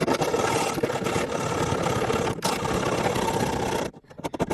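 Mini bimetal hacksaw cutting through a protruding nail end in rapid, steady strokes, with a short pause near the end before the strokes start again.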